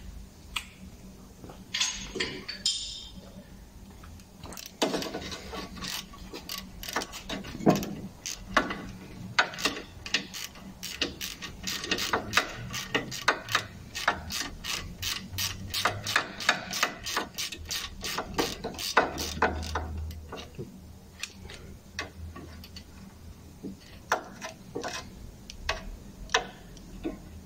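Hand ratchet clicking in quick runs, about three clicks a second, as a bolt on a car's front wheel hub is turned; the clicking thins out to scattered strokes after about twenty seconds in.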